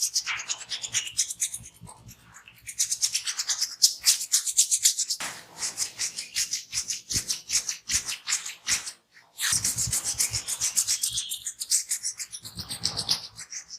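Massage strokes: a barber's hands and fingers rubbing over hair and skin in fast, even strokes, about four to five a second, with short lulls about two seconds in and again past the middle.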